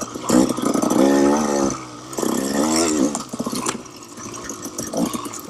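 KTM 300 XC-W two-stroke dirt bike engine revving in several rising and falling bursts, each under a second long.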